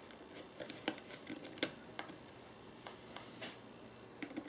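Light, irregular clicks and taps of a thin brass corner bracket and its small fastener being handled and fitted onto a box corner by hand. There are about half a dozen of them, a second or so apart.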